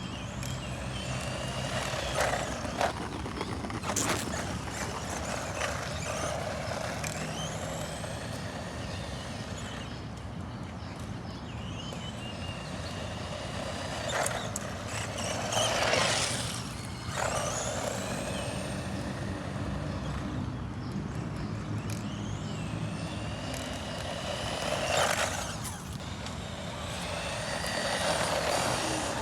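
SCY 16102 1/16-scale 4x4 RC car driving, its electric motor whining up and down in pitch again and again as it speeds up and slows, with several short loud rushes of noise.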